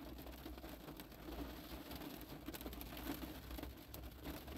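Faint room tone: a steady low hum with a few soft, scattered ticks.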